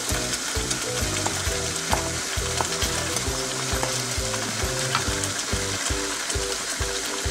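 Chicken in tomato gravy sizzling in a wok while a wooden spatula stirs it, with soft background music underneath.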